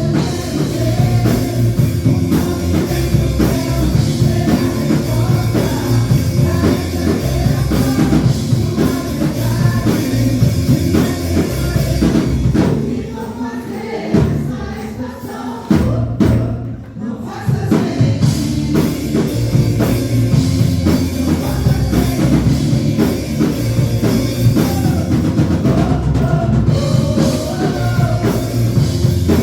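Gospel rock song with singing and a drum kit played along to it. About halfway through, the cymbals drop out and the music briefly dips before the full band and drums come back in.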